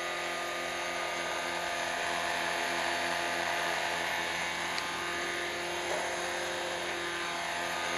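Electric 450-size RC helicopter (Rotorscale AS350) hovering low and settling onto its pad at lowered head speed: a steady whine of the motor, gears and spinning rotor.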